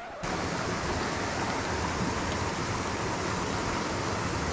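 Mountain stream rushing over rocks: a steady, even wash of water noise.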